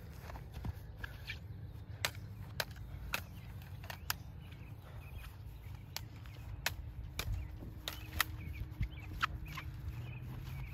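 Plastic toy lightsaber blades clacking together: about a dozen sharp strikes at uneven intervals, over a low wind rumble on the microphone.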